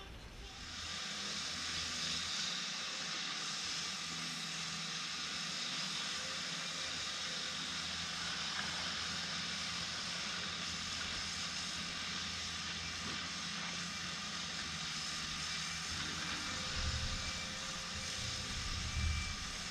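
Pressure washer running: a steady spray hiss over the hum of its pump, coming in about half a second in.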